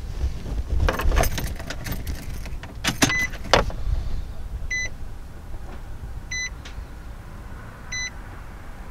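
A burst of clicks and knocks, then three short electronic beeps about a second and a half apart.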